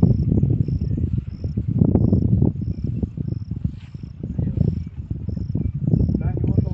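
A cricket chirping steadily, about one and a half short high chirps a second, over a loud, uneven low rumble.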